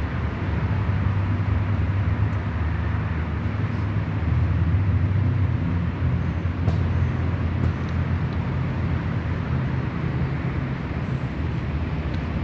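Steady low rumble with an even hiss above it, like street or engine noise, holding level throughout.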